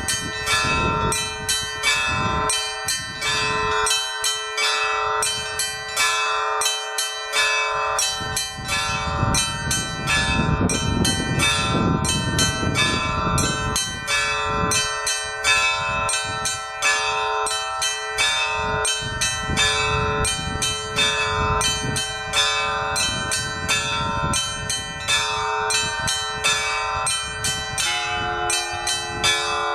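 Orthodox church bells ringing: small bells struck rapidly and continuously over the lasting hum of larger bells, with lower bell strokes coming and going. Near the end the mix of bell tones shifts.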